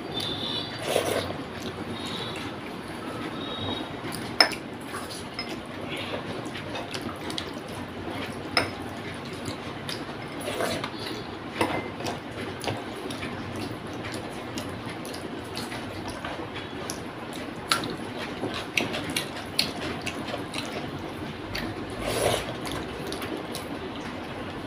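Bare fingers squeezing and mixing rice with a moist side dish on a plate, making small wet squelching and sticky sounds, along with chewing. A few sharper clicks stand out, the loudest about four seconds in.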